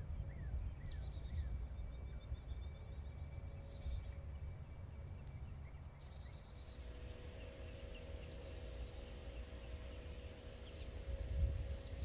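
A songbird singing outdoors: short high-pitched phrases, each a quick downward sweep followed by a rapid trill, repeated every two or three seconds over a low rumble of outdoor background noise.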